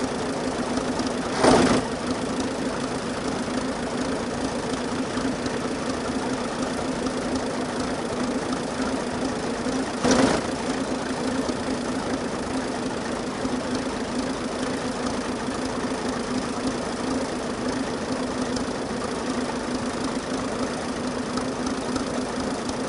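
Vintage tractor engine running steadily with an even hum, with two brief louder bursts, one near the start and one about ten seconds in.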